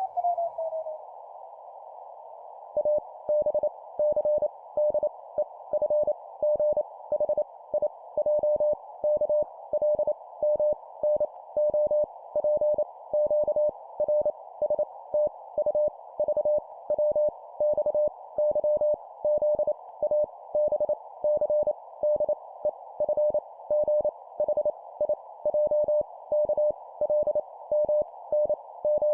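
Morse code (CW) sent at 25 words per minute as practice letters: a single steady mid-pitched tone keyed on and off in dots and dashes, starting about three seconds in, over a narrow band of steady hiss. At the very start a tone slides down in pitch.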